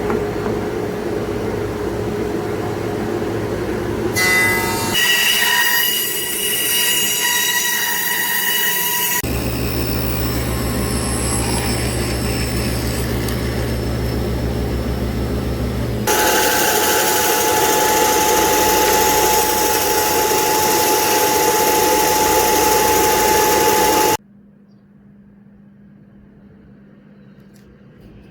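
Woodworking power tools running and cutting wood in a string of short clips, with high whining and squealing tones. The sound changes abruptly several times, and about 24 seconds in it drops to a much quieter low hum.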